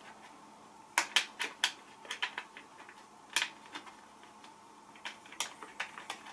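Irregular sharp clicks and taps of mounting screws and handguard parts being handled and turned into place on a motorcycle handlebar.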